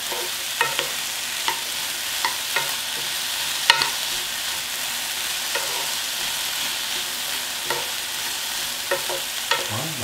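Diced potato, onion, carrot and cucumber sizzling in perilla oil in a frying pan, stir-fried with a spatula that knocks and scrapes against the pan at irregular moments. The loudest knock comes a little before four seconds in.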